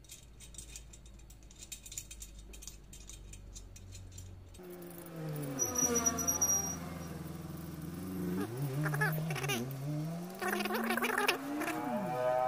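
Faint light metallic clicking of spoke nipples being turned by fingers on a wire-spoked motorcycle rim. From about a third of the way in, a louder sound with a pitch that slides up and down takes over.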